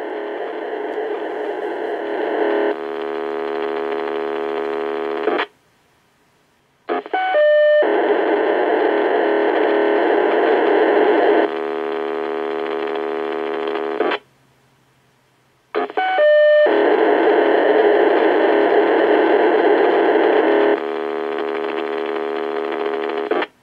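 POCSAG pager data transmissions on 152.180 MHz, received by a Realistic PRO-2023 VHF scanner and heard through its speaker. Three long bursts of rapid, dense data tones come one after another. Each cuts off abruptly into a second or so of silence before the next, and each shifts to a more even pattern partway through.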